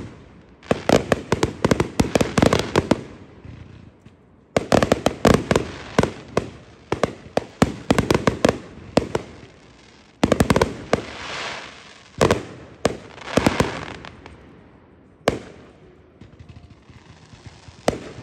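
Fireworks going off: rapid runs of bangs and crackling reports in several volleys, with short lulls between them, a single sharp bang about three-quarters of the way through and another near the end.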